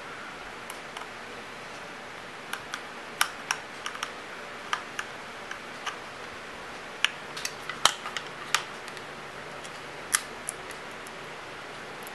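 Small screwdriver driving tiny screws into the side of an external hard drive enclosure: scattered, irregular light clicks and ticks from the tool and screws, over a faint steady hiss.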